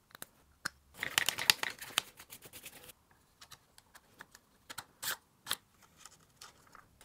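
Small plastic and metal parts of a Losi Promoto RC motorbike clicking and rattling as they are handled and fitted together by hand: a quick flurry of clicks from about one to three seconds in, then scattered single clicks.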